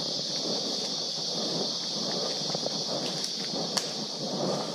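Steady high-pitched insect chorus in tropical forest, with the rustle of footsteps on the trail underneath and one sharp click about four seconds in.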